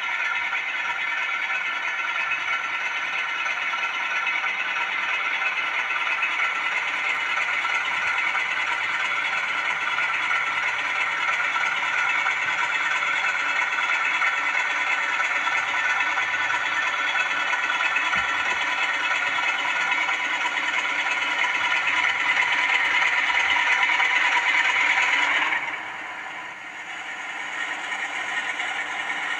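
A Zimo ZS47A sound decoder in a model Class 47 diesel locomotive plays the Sulzer engine sound through the model's small speakers, running steadily as the locomotive moves off. The engine note grows a little louder, then drops away suddenly near the end.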